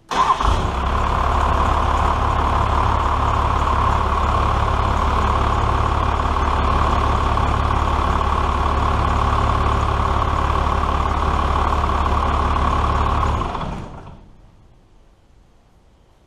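First-generation Dodge Cummins 5.9 12-valve inline-six diesel firing up at once and idling steadily on its first startup with a freshly installed, pre-lubed Holset turbo, run without its filter. It is shut off after about thirteen seconds and runs down quickly.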